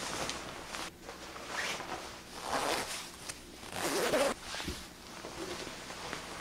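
Nylon down puffer jacket rustling as it is pulled on, and its zipper zipped up, with the two loudest rasps about two and a half and four seconds in.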